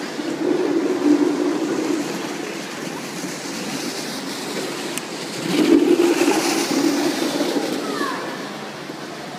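Skates and plastic seal-shaped skating aids sliding and scraping over rink ice, a low rumble that swells up twice as they pass close by.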